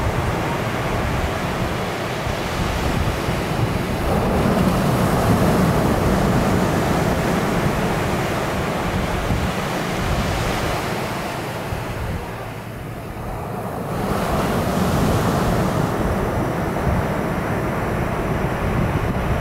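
Ocean surf breaking and washing up a sandy beach, swelling and easing as each wave comes in, with a short lull about two-thirds of the way through. Wind buffets the microphone throughout.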